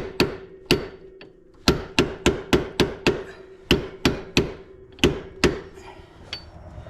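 Hammer driving a steel roll pin through the drive shaft yoke onto the transmission output shaft: about a dozen sharp metal blows in uneven quick groups, the struck metal ringing on a steady note between them. The blows thin out near the end as the pin nears full depth.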